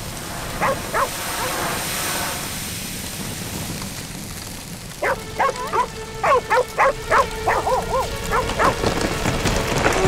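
Dog barking: a couple of barks about a second in, then a quick run of barks from about halfway to near the end, over a steady hiss of rain.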